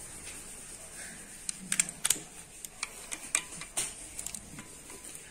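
Irregular sharp metal clicks and clinks from a socket wrench and torque-angle gauge being fitted and turned on cylinder head bolts during angle tightening, coming in a few short clusters.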